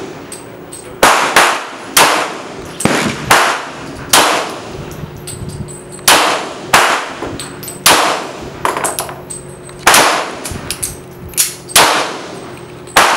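Glock 22 Gen 4 pistol in .40 S&W being fired, about a dozen shots at an uneven pace, mostly a half second to a second apart with one pause of about two seconds. Each shot is followed by a short ringing decay.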